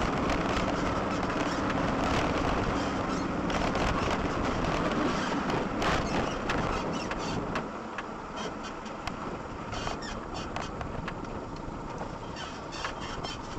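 A car driving: steady road and engine noise with scattered small clicks and knocks, somewhat quieter from about halfway through.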